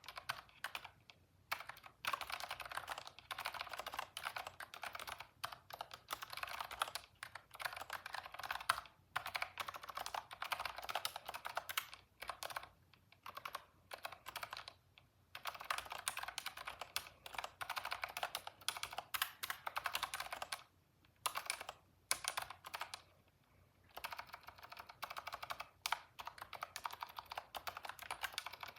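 Typing on a computer keyboard: fast runs of key clicks lasting several seconds, broken by pauses of a second or two, about a second in, around the middle and again about three quarters of the way through.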